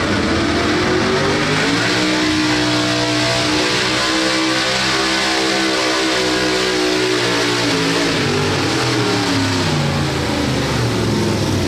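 Square-body pickup pulling truck's engine running loud. It revs up over the first two seconds and holds a steady higher pitch, then drops back and wavers about eight seconds in as the truck is eased up to the pulling sled.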